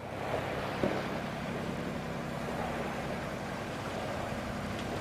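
Tractor engine running steadily as it tows a boat trailer, with a faint rushing noise over it.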